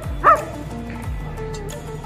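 A German shepherd (Alsatian) gives one short bark about a third of a second in, over background music with a steady beat.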